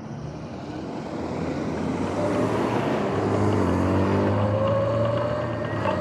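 Sur-Ron electric dirt bike pulling away and gathering speed: a motor whine that rises slowly in pitch over growing wind and tyre noise, with road traffic passing alongside.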